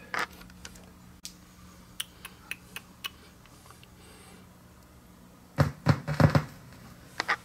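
Handling noise of a vinyl record being turned over on a turntable: scattered light clicks, then a few louder soft thumps about five and a half seconds in, over a faint steady hum.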